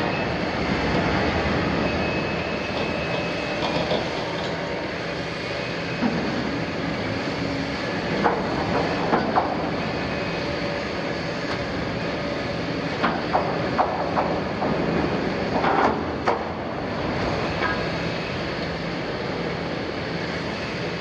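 Liebherr 974 demolition excavator's diesel engine and hydraulics running under load while its shear tears at the steel wall of an oil tank, with metal grinding and screeching and a few sharp metallic clangs near the middle.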